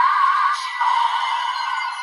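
Desire Driver toy transformation belt playing one of its electronic sound effects, a wavering pitched music-like sound that is thin and tinny, with no bass.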